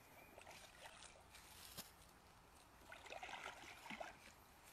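Faint sloshing and trickling of shallow pond water as a person in waders moves and sweeps a dip net through it, a little louder about three seconds in.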